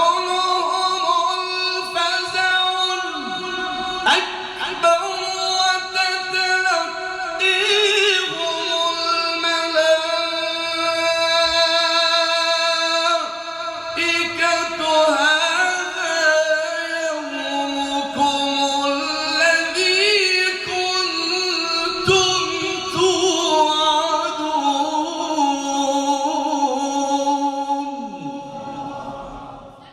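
A male reciter's voice in melodic Quranic recitation, drawing out long held notes with ornamented turns and glides in the maqam style. It fades out near the end.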